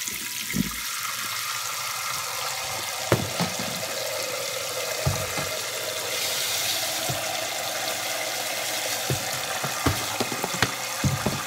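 Kitchen tap water running into a metal saucepan of rice in a stainless steel sink: a steady splashing rush, with a few short knocks scattered through it.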